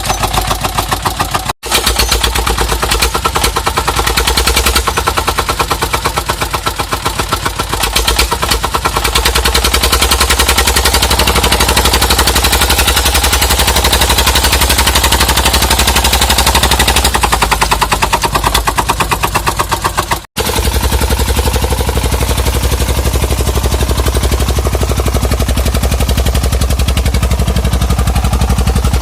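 Dong Feng single-cylinder diesel engine of a homemade truck running, a rapid, even chugging beat from its exhaust. The sound drops out for an instant twice, about a second and a half in and about twenty seconds in.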